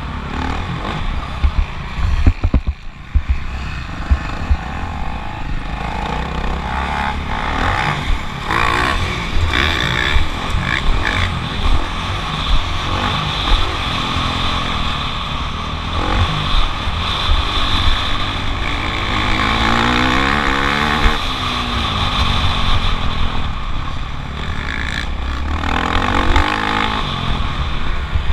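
Motocross bike engine running hard on track, its pitch repeatedly climbing and dropping as the throttle is worked, over heavy wind buffeting and knocks from the ride.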